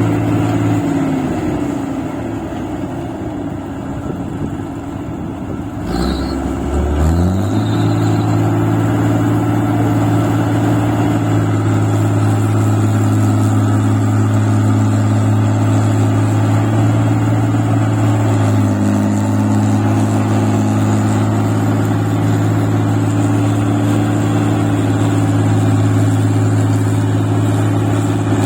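Engine of a paddy-field machine running in deep rice-paddy mud. Its speed sags for the first few seconds, picks back up about six or seven seconds in, then runs steady.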